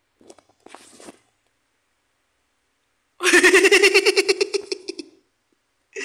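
A cartoon character giggling, a rapid pulsing laugh lasting about two seconds, played through laptop speakers. A few faint short vocal sounds come before it.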